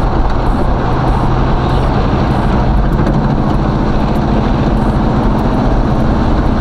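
Chevrolet Caprice Classic's stock small-block V8 running steadily while cruising, heard from inside the cabin over steady road and wind noise through the cracked windows.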